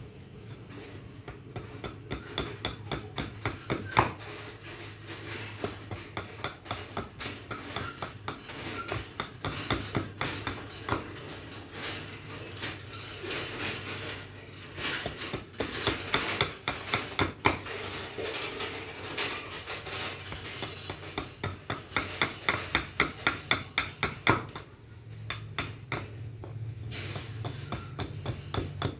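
Rapid runs of light hammer taps, several a second, with short pauses between runs, over a low steady hum.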